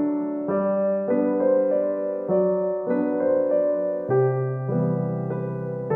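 Background music: soft piano playing a slow run of chords that change about every half second to a second.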